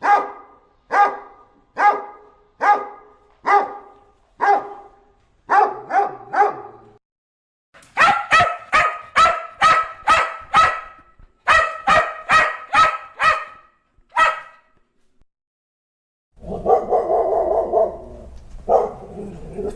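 A dog barking in a steady series, about one bark a second, then after a short pause barking faster, about two a second. Near the end come two longer, drawn-out calls.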